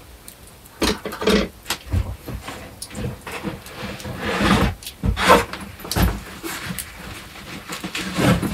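Irregular scrapes, scuffs and knocks of someone climbing a notched wooden pole up a narrow rock crevice: shoes and hands on the wood and rock. A few deeper thumps come about two, five and six seconds in.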